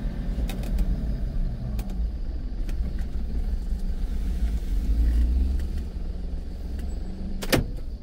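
Car driving on a forest road: a steady low engine and road rumble that swells in the middle and eases off toward the end, with one sharp click near the end.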